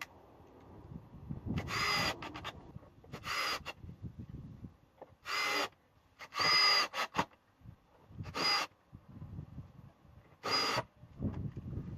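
Power drill run in six short bursts of about half a second each, its motor whining steadily during each burst.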